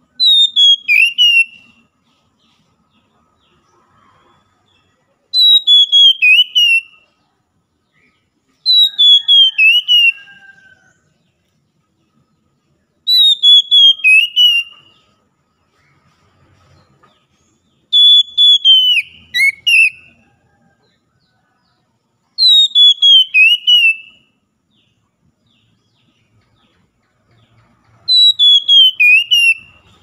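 Oriental magpie-robin (kacer) singing: the same short whistled phrase, a quick run of about half a dozen notes falling from high to lower pitch, repeated seven times about every four to five seconds.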